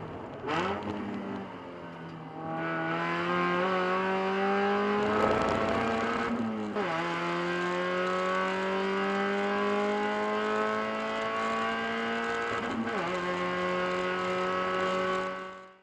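Spec Miata race car's four-cylinder engine heard from inside the car: a quick throttle blip in the first second, steady revs for a couple of seconds, then full-throttle acceleration with the pitch climbing, broken by two upshifts, one a little before halfway and one near the end. The sound cuts off abruptly.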